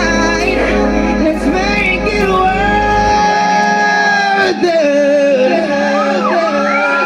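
Live band playing with a singer's long, sliding sung notes. About three seconds in the deep bass drops away, leaving the voice over a held note.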